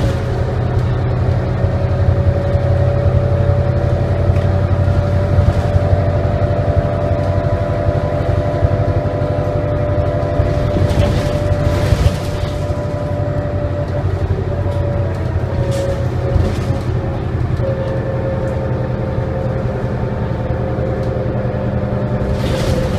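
Detroit Diesel Series 50 diesel engine and drivetrain of a 1999 New Flyer D40LF city bus under way, heard inside the passenger cabin: a steady low drone with a high whine held above it. About halfway through there is a brief rush of noise and the level drops a little.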